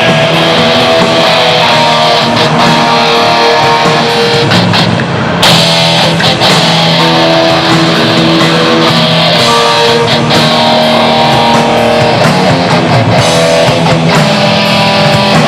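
Heavy metal band playing live, with distorted electric guitars to the fore; the sound thickens and grows louder about five seconds in.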